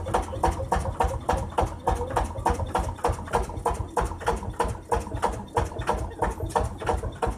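Vintage tractor engine running with an even, regular knocking beat several times a second.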